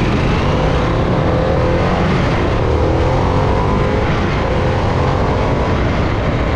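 Harley-Davidson Pan America's Revolution Max 1250 V-twin engine running under way, its pitch climbing steadily several times as the bike accelerates through the gears.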